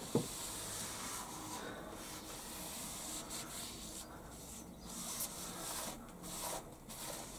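A cloth wiping across the steel T-slotted table of a milling machine, a soft rubbing swish in several uneven strokes, clearing away swarf.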